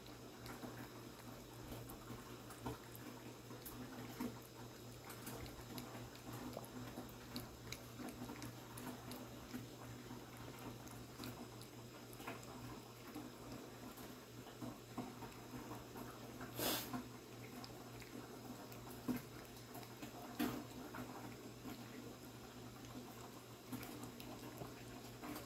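Siamese cat eating wet cat food chunks in gravy from a china plate: soft, wet chewing and lapping with small clicks, and a few louder clicks about two thirds of the way through, over a steady low hum.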